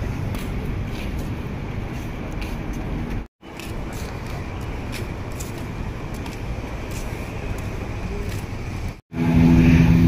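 City street traffic noise, a steady rumble and hiss that drops out briefly twice. In the last second it turns louder, with the steady hum of idling motorcycle engines.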